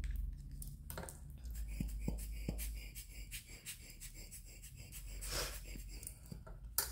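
Quiet tabletop handling of small alcohol ink squeeze bottles, with a few faint taps, then a short puff of air from a rubber bulb air blower about five seconds in, spreading the ink drops across the clay. A sharp click comes near the end.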